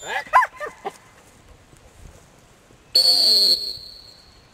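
Boykin spaniel giving a few quick high barks as it is sent out. About three seconds in comes one sharp blast on a dog-training whistle, the loudest sound here, which is the signal for the running dog to stop and sit.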